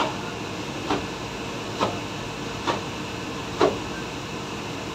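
Steady fan-like background noise with five short knocks about a second apart, the last one the loudest.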